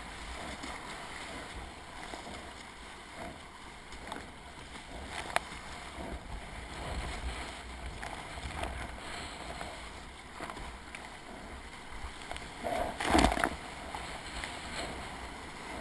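Whitewater rapids rushing steadily around a kayak, with paddle strokes splashing and a few sharp knocks. A louder burst of splashing comes about thirteen seconds in as the boat runs through foaming water.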